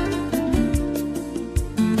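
Background music led by plucked acoustic guitar, with a steady beat of notes.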